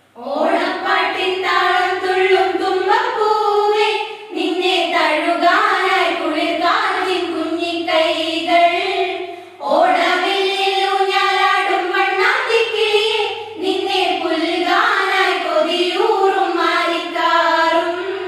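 A small group of girls and women singing a song together, children's and adult female voices in one melody, in phrases a few seconds long with short breaks between them.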